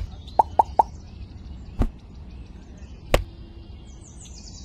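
A few sharp clicks and knocks, with three quick hollow plops in a row about half a second in. Birds chirp faintly in the background.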